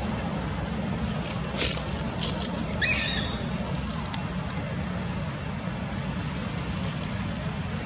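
Steady low outdoor rumble with a sharp click, then about three seconds in a short high call that falls in pitch.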